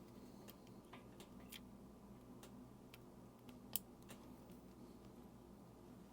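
Faint, scattered small clicks from handling a coin-cell battery and the watch module while fitting the battery, with one sharper click about two-thirds of the way through.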